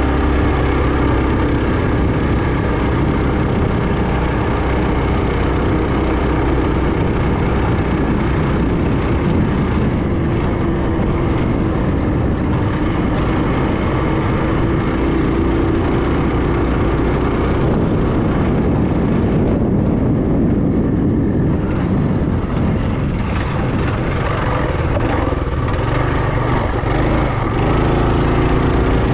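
Trailmaster MB200 minibike's 196cc single-cylinder engine running under way as it is ridden. Its pitch rises and falls with the throttle, over a low wind rumble on the microphone.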